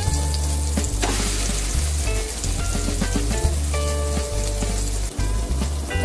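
Raw hamburg steak patties sizzling in hot oil in a frying pan.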